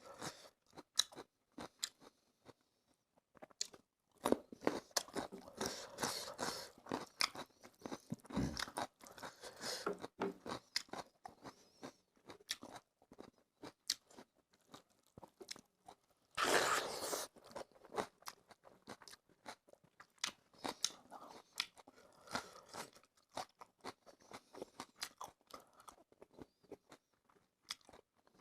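Close-miked eating sounds: a person chewing and crunching food with many small mouth clicks, in busier spells, and one louder noisy burst lasting about a second a little past the middle.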